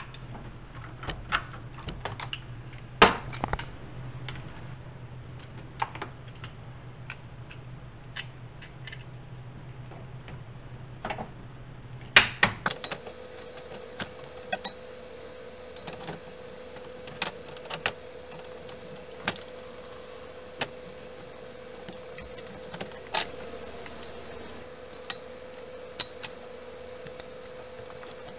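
Irregular clicks, taps and clinks of hand tools against metal in a car's engine bay as a hose and fittings are worked loose, with a quick cluster of louder clicks about twelve seconds in. A steady low hum runs underneath.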